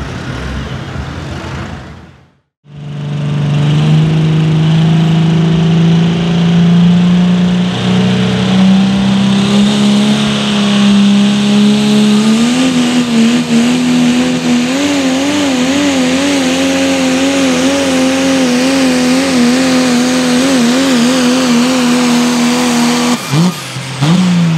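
Dodge Ram diesel pulling truck running at full throttle while dragging a weight-transfer sled, its engine note stepping up in pitch and then wavering up and down under load. About two seconds in there is a brief gap, and before it the tail of another pulling truck's engine.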